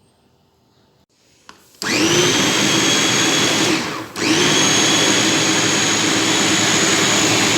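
Electric countertop blender switched on about two seconds in, its motor whine rising quickly to full speed as it blends pineapple, ginger and water into juice. It stops briefly near four seconds and starts again at full speed.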